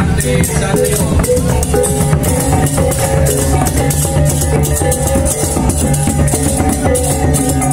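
Balinese baleganjur marching gamelan playing: large ceng-ceng kopyak hand cymbals clashing rapidly over drums, with steady ringing gong and metallophone tones underneath.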